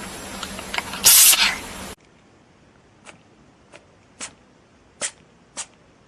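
A cat sneezing: one loud, sharp sneeze about a second in. After a cut comes a run of five small, quick sneezes about half a second apart.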